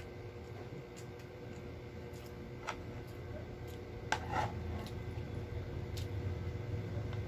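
A plastic spoon scraping and tapping in a food tray of tteokbokki. There are a few light clicks, with the loudest cluster about four seconds in, over a steady low hum.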